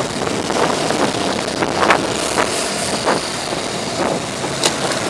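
Wind buffeting the microphone and road traffic noise while riding an electric scooter through city traffic, with a few brief sharp noises.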